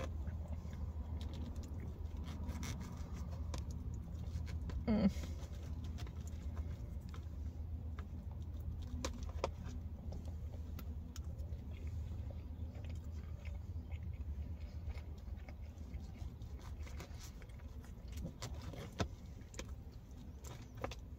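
Plastic fork clicking and scraping in a plastic takeout container while food is scooped and eaten, over a steady low hum of the car's cabin. There is one brief louder sound about five seconds in.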